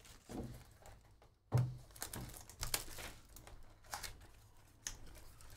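Foil trading-card pack wrappers crinkling as baseball card packs are handled and opened, in short irregular crackles. A knock, louder than the rest, comes about a second and a half in.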